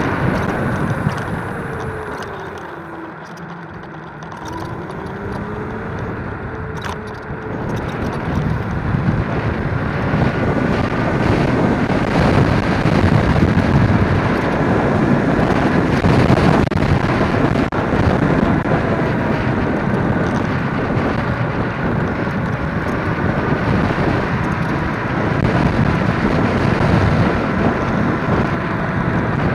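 Wind rushing over the microphone of a 60V electric scooter with dual 1200W motors ridden at speed, with a thin motor whine that glides down and up in pitch with speed. It eases off about two seconds in and picks up again from about seven seconds.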